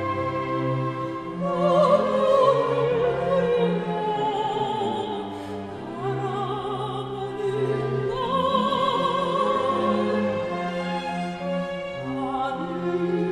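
Operatic soprano voice singing a Korean art song in long held phrases with wide vibrato, accompanied by a string orchestra playing sustained notes.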